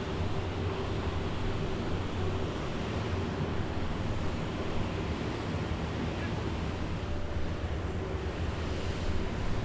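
Steady rushing noise of wind and water over a low, constant drone, typical of outdoor footage of M3 amphibious rigs running on a river.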